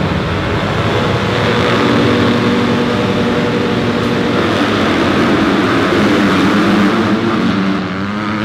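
A full gate of motocross bikes revving at the start line, then accelerating off the line together as a pack.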